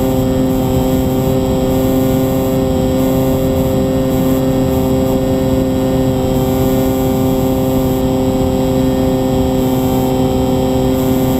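Model aircraft's motor and propeller heard from its onboard camera: a steady hum held at one pitch, with wind rushing over the microphone.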